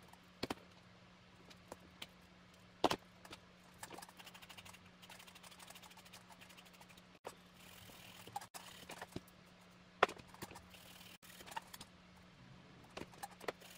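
Small hand-work noises at a repair bench: scattered sharp clicks and taps, the loudest about 3 and 10 seconds in, with a few stretches of soft scraping, over a steady faint low hum.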